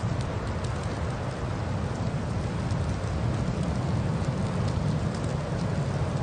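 Steady rushing noise of a car driving through a snowstorm, with a strong low rumble and faint scattered ticks.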